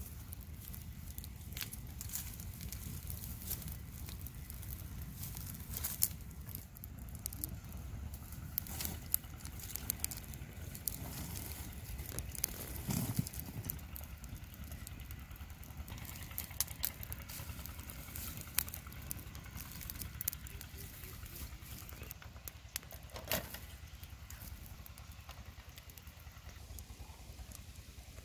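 Small open wood fire of dry twigs and branches burning, with irregular sharp crackles and pops over a steady low rumble.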